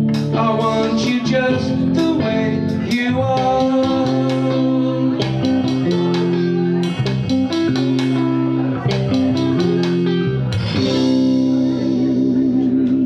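Electric guitar and bass guitar playing the last bars of a song: picked guitar notes over long held bass notes. About eleven seconds in they settle on a held final chord, one note wavering with vibrato.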